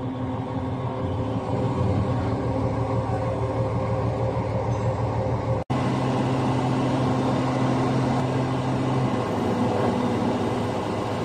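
Diesel engine of a crane running steadily under load as it hoists heavy plant parts. The drone cuts out for an instant a little past halfway, then carries on at much the same pitch.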